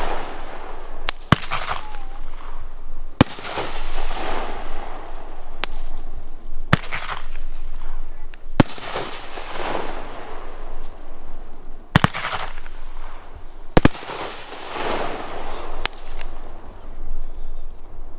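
2-inch Nishiki Uppercut firework shells from Heavyweight Fireworks firing in sequence: about eight sharp bangs, two to four seconds apart, each followed by a fading hiss of the Nishiki willow effect.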